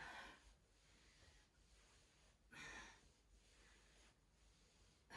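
Near silence, broken by two faint, short exhaled breaths about two and a half seconds apart, from a person working through an abdominal exercise.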